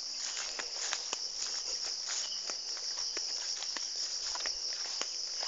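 Steady high-pitched chorus of insects, with light footsteps and rustling through grass as scattered soft clicks.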